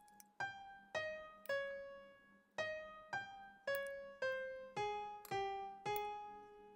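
Background piano music: a slow melody of single notes, about two a second, each ringing and fading.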